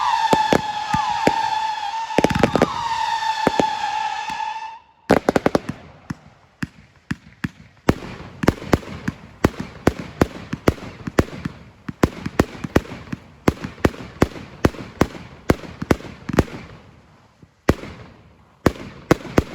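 Fireworks going off: a steady high whistle, with short gliding whistles over it and some bangs, cuts off about five seconds in. A rapid run of sharp bangs from a firework battery follows, several a second, thinning out and fading near the end.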